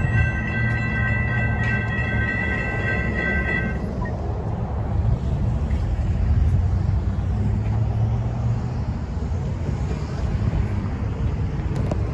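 Metrolink commuter train's horn sounding a steady chord that stops about four seconds in, over the low rumble of the train running, which carries on after the horn ends.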